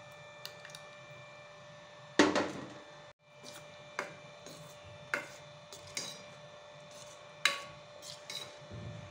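Metal ladle stirring thick ragi and rice porridge in a stainless-steel pot, knocking and scraping against the pot's sides at irregular intervals, about once a second; the loudest clatter comes a little after two seconds in.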